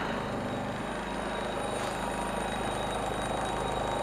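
Generac GP3300i inverter generator running steadily with no load, a really quiet, even engine hum with a thin steady high tone over it.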